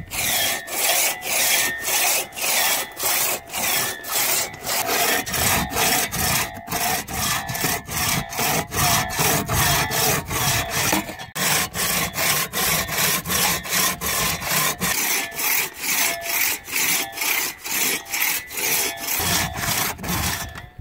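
Six-foot two-man crosscut saw cutting through a log, the teeth cutting in both directions in a fast, even rhythm of rasping strokes, with a faint ringing note from the blade.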